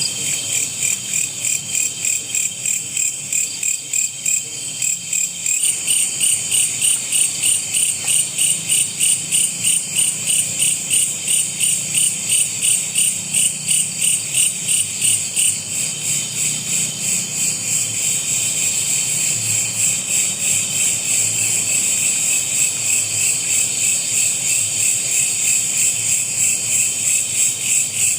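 Insects chirping in an even, pulsing chorus of high-pitched calls, about two pulses a second, growing stronger about six seconds in.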